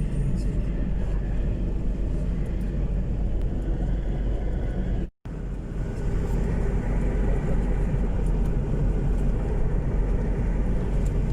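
Steady low engine rumble of a vehicle on the move, cut off for an instant about halfway through.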